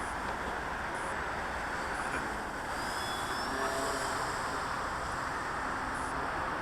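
Steady rushing wind noise on the microphone, with the faint whine of the FunCub model plane's electric motor heard briefly about three to four seconds in, rising slightly in pitch.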